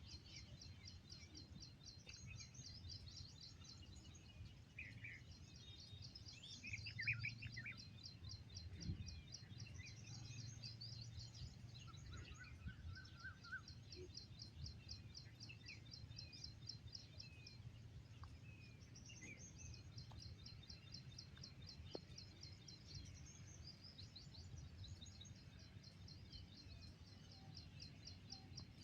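Faint outdoor birdsong: a steady series of quick, high chirps repeating many times a second, with a few scattered lower bird calls, over a low rumble.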